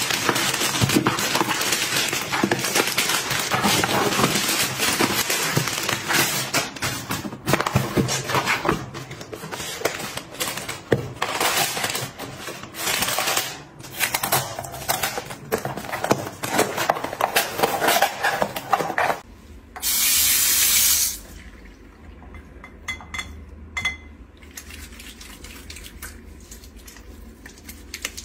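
Plastic mailer bags and cardboard boxes being opened and handled: dense crinkling and rustling with many sharp crackles. It stops suddenly, and about 20 s in a short burst of hissing noise lasts a second or two, followed by quieter scattered handling sounds.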